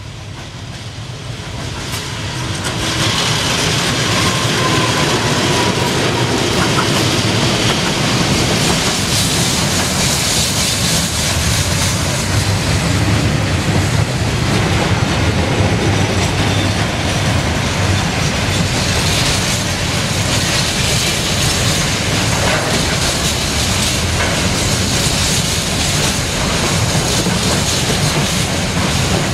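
KiwiRail diesel freight train passing close by: the noise swells over the first three seconds as the locomotive comes past, then the container wagons' wheels keep up a steady, loud rumble and clatter on the rails.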